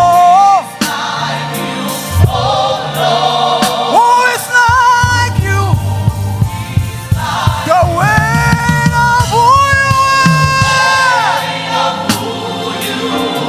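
Gospel choir singing with live band accompaniment, bending into long held notes with vibrato over a steady bass line.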